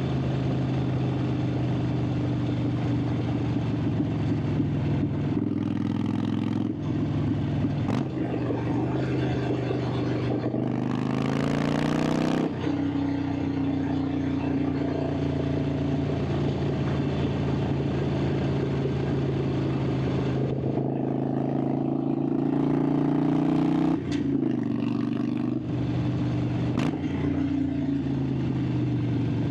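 Harley-Davidson Sportster 883's air-cooled V-twin running under way, heard from on the bike. About eleven seconds in the engine note climbs as it revs out, then falls sharply at a shift or throttle-off, with a few more sudden drops in pitch between stretches of steady running.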